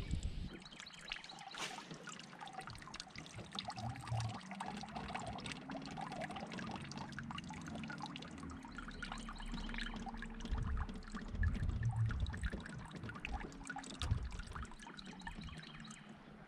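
Water lapping and trickling against the hull of a slowly moving bass boat, with a few soft low thumps.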